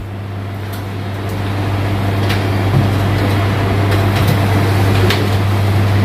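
Steady low electrical hum over a rushing mechanical noise that swells over the first couple of seconds and then holds steady, with a few faint ticks.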